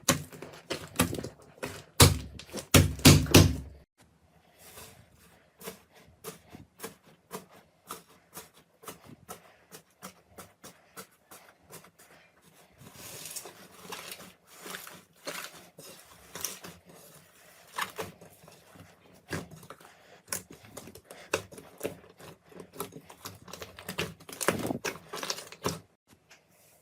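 Slime being squeezed and poked by hand: a dense run of sticky clicks, crackles and small pops, loudest in a burst about two to four seconds in and again near the end.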